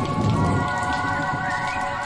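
Steady rain with a low thunder rumble in the first half second, under an eerie sustained chord of held tones, as a horror ambience sound effect.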